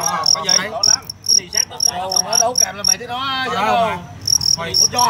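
Male fighting crickets chirping: short, sharp high-pitched chirps about four to five a second, with a pause of about a second just past the middle.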